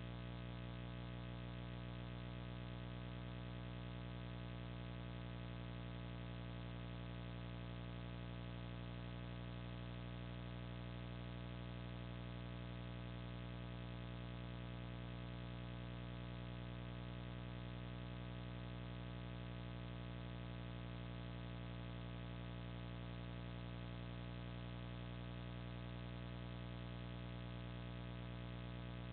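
Steady electrical hum with a dense stack of overtones, unchanging throughout.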